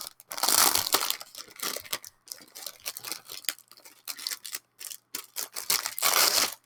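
Cellophane wrapping being torn open and crinkled off a packaged set, in irregular bursts of crackling, loudest just after the start and again near the end.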